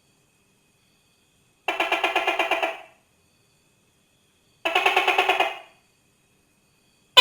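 Tokay gecko calling: two bursts of rapid, evenly spaced pulses, each about a second long, about three seconds apart, with a third starting right at the end.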